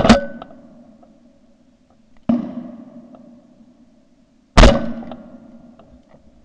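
Shotgun shots: three sharp reports about two seconds apart, the first followed at once by a second crack, each trailing off in a long echo.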